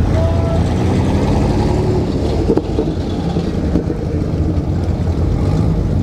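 Lowered Chevrolet S-10 Blazer's engine and exhaust running with a steady deep rumble as it moves off slowly.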